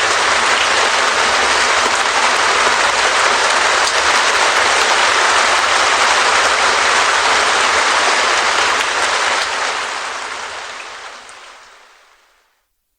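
Heavy rain drumming steadily on a clear Perspex (acrylic) sheet, a dense even patter that fades out to silence about three-quarters of the way through.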